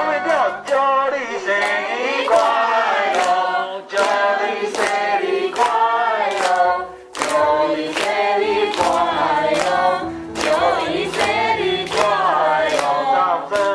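A group of people singing a birthday song together, clapping along in time with about one clap a beat.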